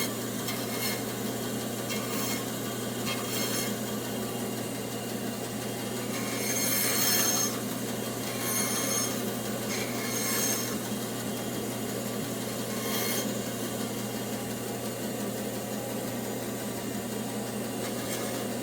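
Bandsaw running with a steady hum while its blade cuts knots off tree-branch legs in several short cuts, the loudest about seven seconds in.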